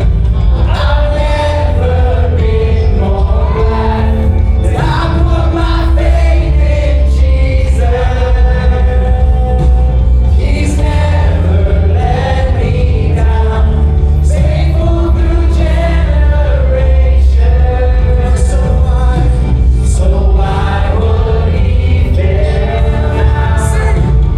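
Worship band and congregation singing a gospel-style song, voices over a steady, heavy bass.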